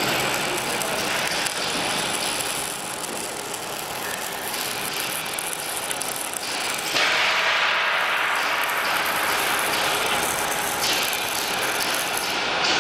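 Two-post parking lift working under test: a steady mechanical running noise with repeated ratchet-like clicking, typical of the safety-lock pawl riding over the lock ladder as the platform moves on the post. The noise grows louder about seven seconds in.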